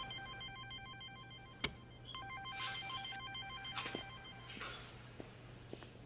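Mobile phone ringtone: a chord of steady electronic tones that rings in two phrases, with a short break just before two seconds in, and stops about four and a half seconds in.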